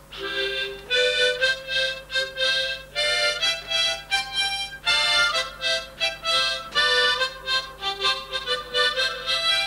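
Harmonica playing a simple tune in short notes and chords with a steady rhythm.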